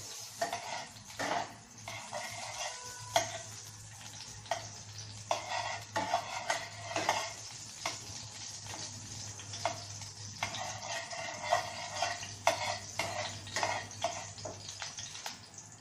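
A spatula stirring and scraping in a metal kadhai of melting ghee, with irregular short scrapes and taps against the pan over a faint, steady sizzle as the ghee heats.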